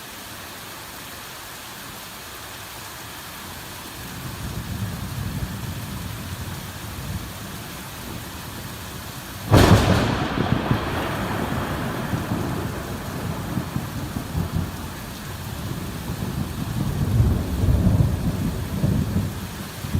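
Heavy rain falling steadily on a forest, with thunder: low rumbling builds a few seconds in, a sharp thunderclap cracks about halfway through and rolls on into long rumbling, and the rumbling swells again near the end.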